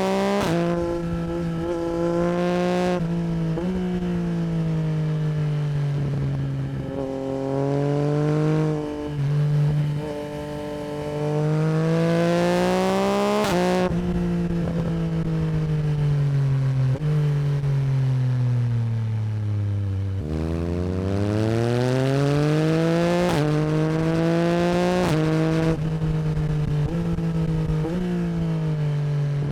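Yamaha MT-09 SP's CP3 three-cylinder engine through an Akrapovic Racing Line exhaust, pulling up through the gears with a sudden drop in pitch at each upshift. About halfway in the revs fall slowly for several seconds as the bike slows, then it accelerates hard again and runs fairly steady near the end.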